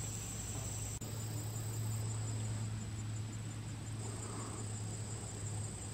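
Steady, high-pitched chorus of insects buzzing and trilling in summer vegetation, over a low steady hum.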